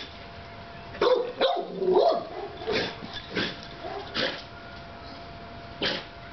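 A dog barking: several short barks at irregular intervals, bunched in the first half and more spread out after.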